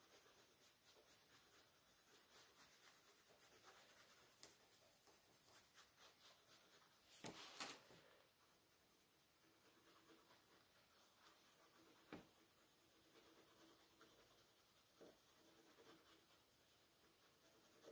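Very faint scratching of a coloured pencil shading on sketchbook paper, with a few soft knocks, the loudest about seven seconds in.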